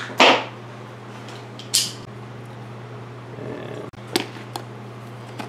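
Tools and parts being handled on a wooden workbench: two short, loud scraping noises, then a few light clicks about four seconds in, over a steady low hum.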